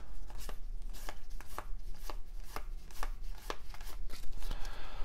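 1993 Topps baseball cards being flipped one at a time from a stack, each card giving a light click as it is slid off and snapped onto the pile, at roughly three a second in an uneven rhythm.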